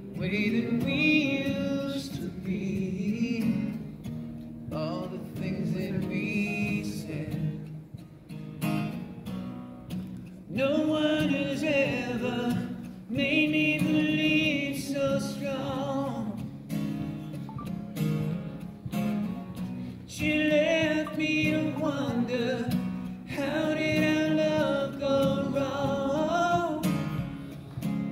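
Man singing without a microphone in phrases, accompanied by a strummed acoustic guitar.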